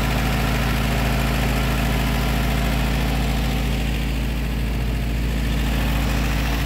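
Willys jeep's four-cylinder flathead engine running steadily at idle in first gear, driving the front-mounted Koenig PTO winch through the transmission as the jeep winches itself along its cable.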